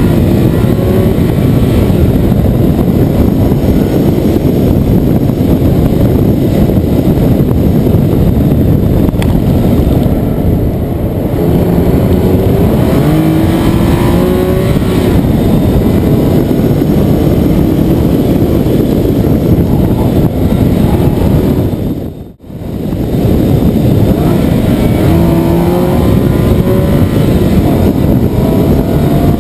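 Nissan 370Z's 3.7-litre V6 running loud while driving, its note rising in pitch several times as the car accelerates. The sound drops out briefly about three-quarters of the way through.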